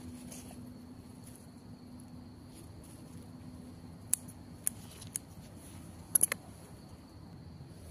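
Scissors snipping through water spinach stems: a few separate sharp snips, then three in quick succession about six seconds in.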